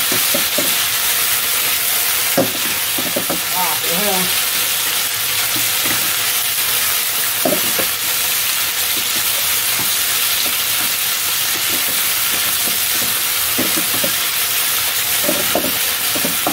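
Chicken pieces sizzling steadily in hot oil in a nonstick wok while being stirred and turned with a wooden spatula, with occasional scrapes of the spatula against the pan.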